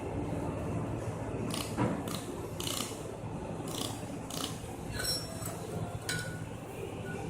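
Steady hum of a running machine with about eight sharp, irregular metallic clicks and clinks, the later ones ringing briefly, from laser welding work on metal parts.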